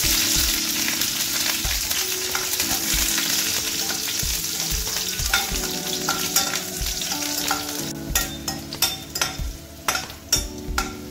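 Green chillies sizzling in hot oil in a stainless steel kadai. The sizzle starts loud the moment they go in and slowly dies down. In the last few seconds a steel spoon clicks and scrapes against the pan as they are stirred.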